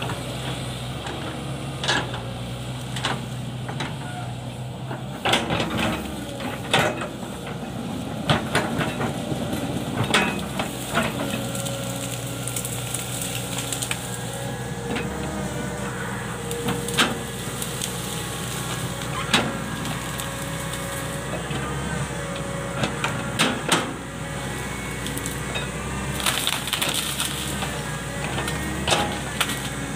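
Hitachi crawler excavator's diesel engine running steadily as its bucket and boom push into brush and small trees, with repeated sharp cracks and snaps of breaking branches and wood.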